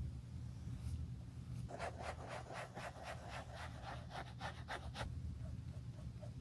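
A sponge scrubbed quickly back and forth along the leather edge of a shoe, about four strokes a second, starting a little under two seconds in and stopping about five seconds in. Faint light ticks of a small brush dabbing follow.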